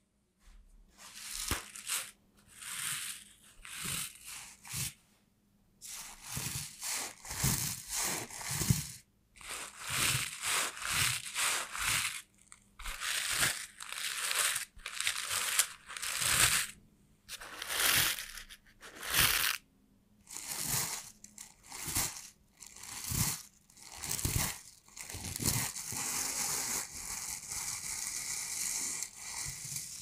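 Leather gloves rubbed and squeezed right against a microphone, making crinkling, creaking strokes about once a second. Near the end this turns into a steadier continuous rub that stops suddenly.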